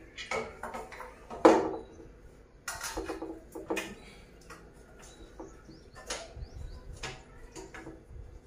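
Irregular knocks and clinks of a black tubular metal trolley frame and its shelf being handled and fitted together during assembly, the loudest knock about one and a half seconds in.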